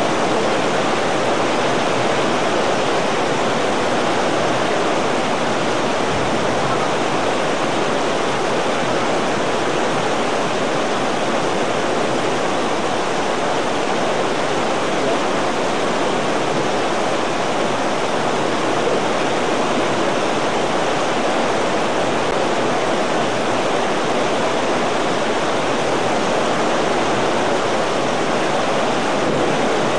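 Heavy downpour of rain pouring steadily, an even unbroken rushing noise.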